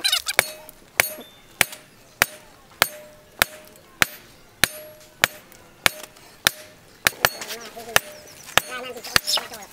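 Hammer blows on a red-hot steel bar held on a post anvil, struck in a steady rhythm of about one and a half blows a second. Each blow gives a sharp clank with a brief ring from the anvil, as the hot steel is forged toward a knife blade.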